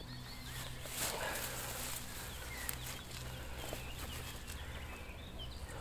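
Rustling of grass and leafy twigs being handled, with faint bird chirps scattered through and a low steady hum underneath.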